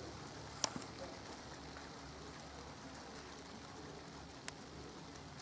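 Cessna 182's piston engine idling as the aircraft taxis, heard as a faint low hum under steady hiss. Two sharp clicks cut through it, one under a second in and a weaker one near the end.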